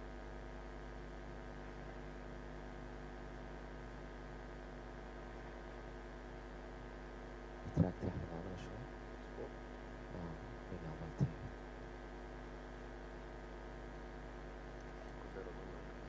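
Steady electrical mains hum, a stack of even tones, with a few brief faint sounds about eight and eleven seconds in.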